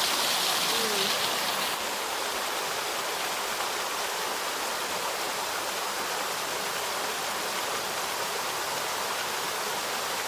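Steady rushing of flowing or falling water, like a rainforest stream or waterfall, dropping slightly in level about two seconds in and cutting off suddenly at the end.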